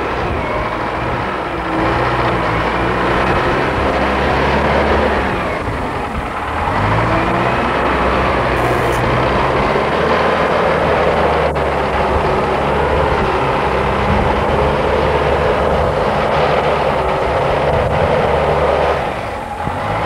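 A wheeled loader's diesel engine working under load on a silage clamp, its pitch rising and falling as the revs change, with short dips in loudness about six seconds in and near the end.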